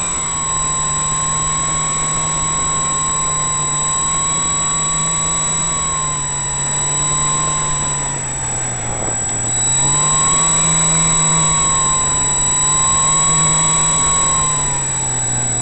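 Model J3 Cub airplane's motor and propeller droning in flight, heard close up, the pitch dipping and rising again with throttle changes about halfway through and easing down near the end as the plane comes in low.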